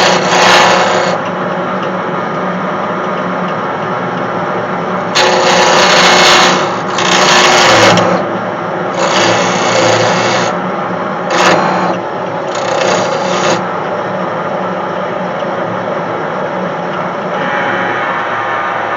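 Myford ML8 wood lathe running steadily with a hand gouge cutting into spinning scrap wood in several loud scraping bursts, each about a second long, mostly between about five and fourteen seconds in.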